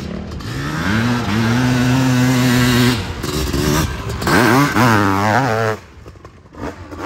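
Dirt bike engine at full throttle on a hillclimb: the revs climb and hold high, then warble rapidly up and down, and the engine cuts off sharply about six seconds in.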